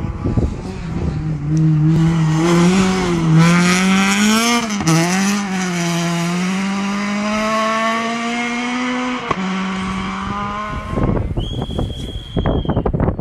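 Rally car engine at high revs as the car approaches, its note wavering and then climbing steadily through a gear, with a short drop at a gear change about nine seconds in. Near the end a high steady tone comes in.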